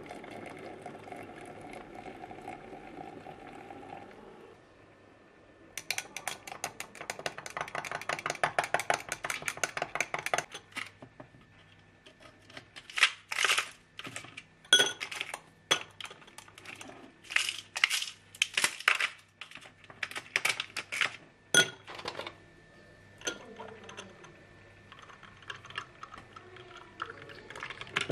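Hot water poured from an electric kettle into a glass of instant coffee and sugar, followed by rapid clinking as the coffee is stirred against the glass. Then a series of single sharp clinks as ice cubes drop into the glass, and near the end a softer pour as milk goes in.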